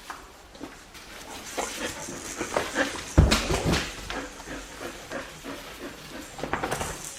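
Four-week-old Australian Shepherd puppies moving about and playing, with scratchy scuffling and short high sounds, and one loud thump about three seconds in.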